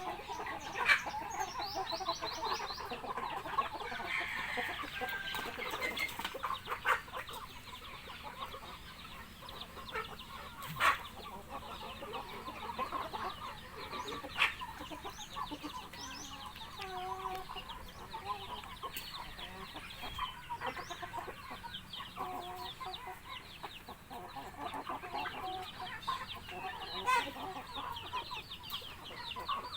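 A flock of chickens clucking and chattering continuously while being fed, with a few sharp knocks standing out above the calls.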